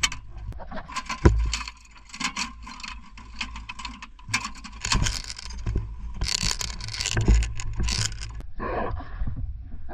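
DShK 12.7 mm heavy machine gun being reloaded: irregular metallic clanking, clicking and scraping of the ammunition belt and gun parts being handled, with one heavy thump about a second in.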